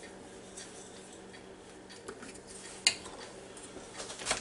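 A few faint clicks and taps from a pepper shaker being shaken over an open plastic bag, with one sharper click about three seconds in and another near the end.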